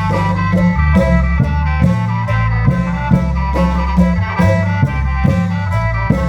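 Isan klong yao long-drum troupe music: a khaen-style melody of held tones over heavy bass and a steady drum beat of about two to three strokes a second.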